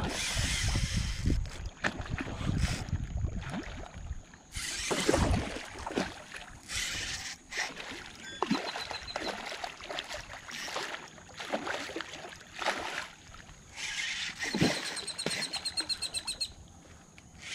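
Hooked redfish thrashing and splashing at the water's surface in shallow water during the fight, in irregular bursts of a second or so. Two short runs of rapid clicking come in the middle and near the end.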